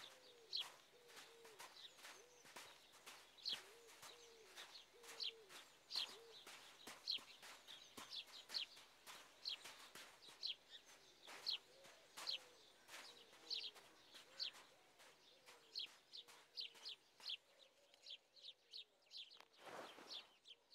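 Faint outdoor birdsong: small birds give short, high chirps again and again, with a dove cooing softly underneath in the first half.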